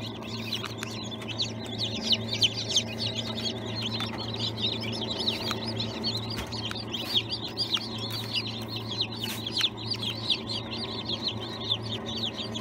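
Newly hatched chicks peeping continuously, many short high-pitched downward-slurred peeps overlapping several times a second, over a steady low hum.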